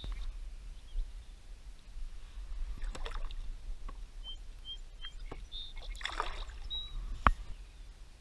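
Water splashing and sloshing beside a kayak as a largemouth bass is lowered in by hand and released, with a couple of louder splashes and a sharp knock against the kayak near the end.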